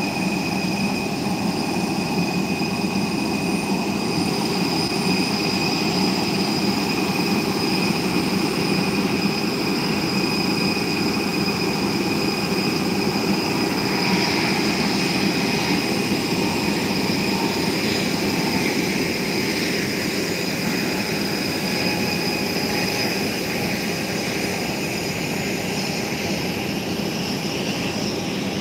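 Steady jet-aircraft turbine whine, a high steady whistle over a dense rumble. A rushing swell builds about halfway through and then eases off.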